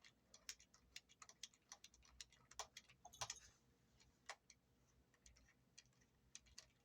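Faint, irregular small metal clicks and taps of guitar tuners and their nuts being handled as the tuners come off the headstock.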